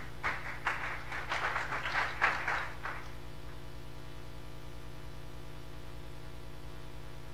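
Brief, scattered applause from a small audience, dying away after about three seconds, leaving a steady low electrical hum.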